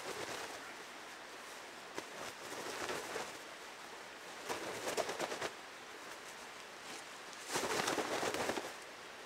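Puffy nylon sleeping bag rustling as it is lifted, shaken out and handled, in several bursts, with the longest and loudest one near the end.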